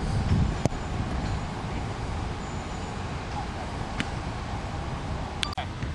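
Steady outdoor background rumble picked up by a camcorder microphone on an open field, with a few short sharp knocks.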